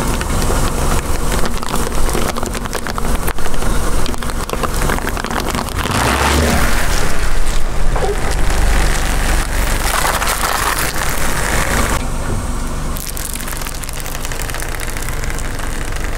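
A car tyre rolling slowly over a row of disposable cups on asphalt: a dense run of crackling and crunching as the cups flatten one after another. About twelve seconds in it changes to a slightly quieter crackle as a wrapped chocolate bar is crushed under the tyre.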